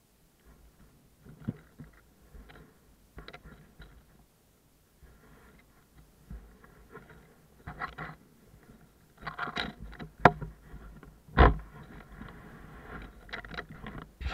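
Rustling, scraping and knocking from the rider moving about on a parked scooter, close to the microphone, with no engine running. It grows busier in the second half, with a sharp click about ten seconds in and a heavier thump about a second later.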